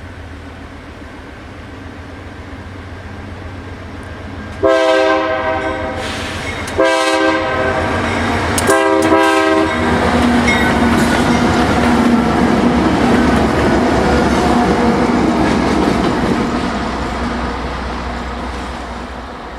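Diesel freight locomotive approaching and sounding its horn for a grade crossing: two long blasts, then a short and a long. It then runs by with engine rumble and wheel noise that swell and slowly fade.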